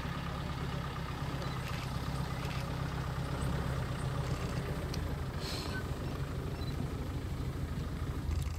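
Safari vehicle's engine idling steadily, with a few faint clicks about halfway through.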